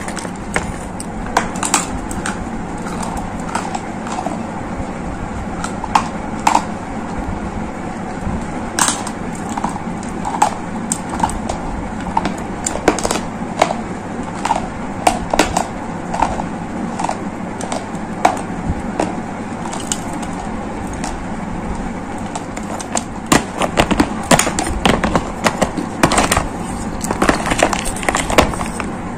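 Dry gray clay lumps crunching and crackling as a spoon crushes them in a plastic plate: irregular sharp cracks and crumbles, coming thicker near the end.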